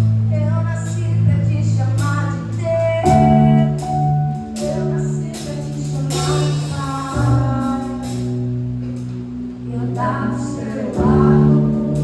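Worship band playing a gospel song: singing over held chords, with light percussion.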